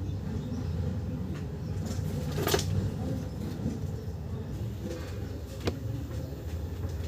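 Steady low background rumble with two sharp clicks, the louder one about two and a half seconds in and a second near the end.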